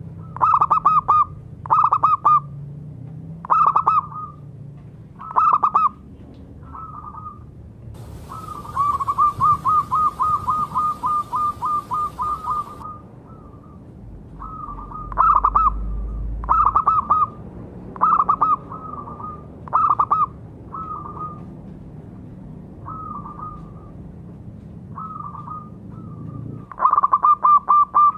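Zebra dove (perkutut) cooing: clusters of short rolling coos repeated every second or two. About eight seconds in comes a fast run of some fifteen quick coos lasting about four seconds.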